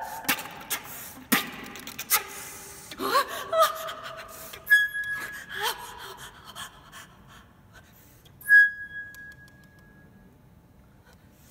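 Concert flute played with extended techniques: sharp clicks and breathy gasping sounds, a few short notes that swoop upward, and a thin high note about eight seconds in that fades away. The gasps depict the dying god Pan struggling for breath while still making music.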